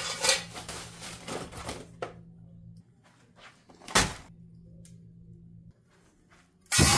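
Plastic bubble wrap crinkling and rustling as a packed engine part is handled and unwrapped, followed after a pause by a single sharp thump about four seconds in, and a brief loud rustle at the very end.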